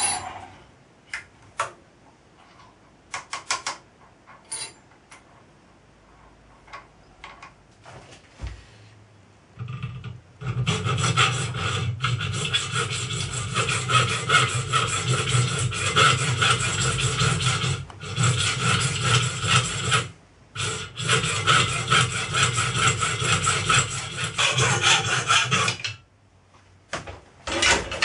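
Hacksaw cutting a small brass part clamped in a bench vice, sawing it in two. The strokes rasp steadily for about fifteen seconds with two short pauses. Before them come scattered light clicks and knocks of tools being handled.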